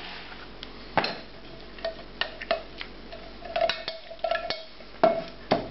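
Metal saucepan and stainless mesh sieve clinking and scraping as a thick chili reduction is poured and scraped out of the pan into the sieve: scattered sharp knocks, with a brief scraping squeal a little past the middle.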